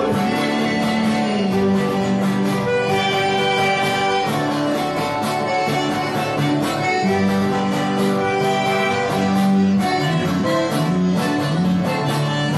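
Instrumental passage of a gospel sertanejo hymn: acoustic guitar strumming under accordion holding sustained chords.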